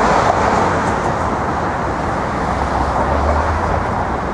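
City street traffic noise: a steady wash of passing vehicles, with a deeper rumble swelling about three seconds in.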